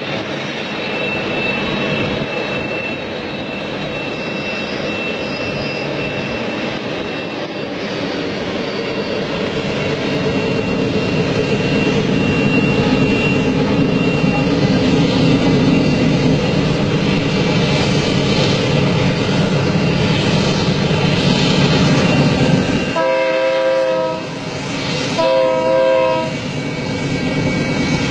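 Diesel freight locomotives hauling a long container train, their steady rumble slowly growing louder as they approach. Near the end the locomotive's air horn sounds two blasts, each about a second long, about a second apart.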